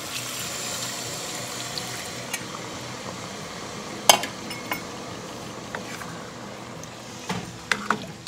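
Water poured from a bowl into a steel pot of fried chicken and spice paste, sizzling as it hits the hot pan for the first few seconds. A single sharp knock comes about four seconds in, and near the end a wooden spatula stirs and knocks against the pot.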